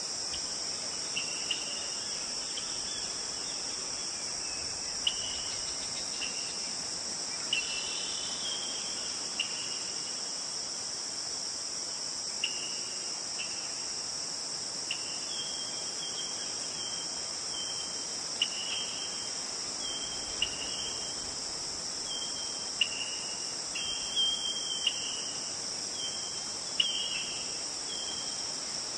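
Steady high-pitched insect chorus, with short chirping calls over it every second or so that come more often in the second half.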